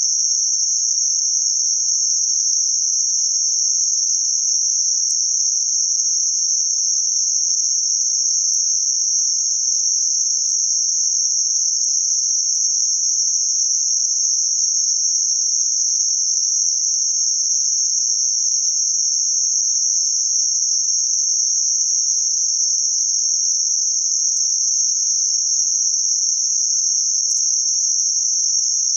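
Synthetic band-limited noise centred around 6 kHz (6051 Hz): a steady, high-pitched hiss that never changes.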